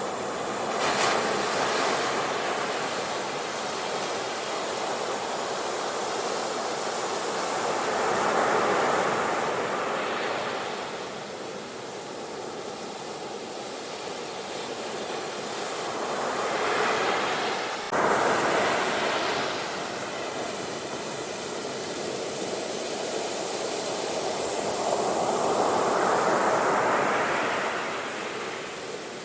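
Ocean surf: waves breaking near the shore and washing in, swelling and fading about every eight seconds, with a sudden surge about eighteen seconds in.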